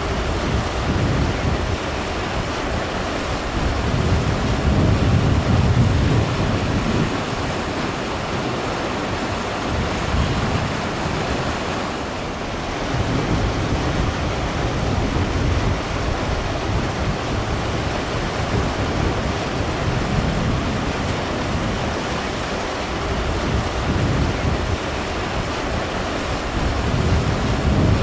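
Wind buffeting the microphone: a steady rushing noise with low rumbling gusts that swell a few seconds in and again near the end.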